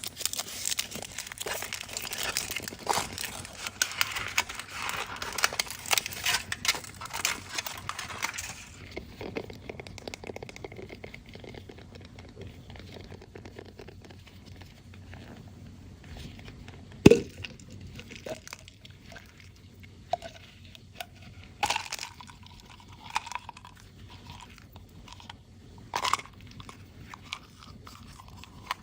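Foil wrapper of a chocolate surprise egg crinkling and tearing for about the first nine seconds. Then quieter handling with scattered clicks, and one loud sharp knock a little past the middle.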